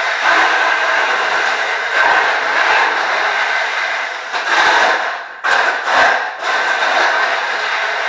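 Combat robot's electric drive motors and rebuilt gearboxes whining as it drives and turns on a concrete floor, with the wheels rolling on the concrete. The sound drops out briefly twice a little past halfway as the drive stops and starts again.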